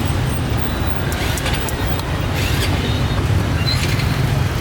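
Steady road traffic: vehicle engines running and tyres on the road as a continuous low rumble, with a few light clicks over it.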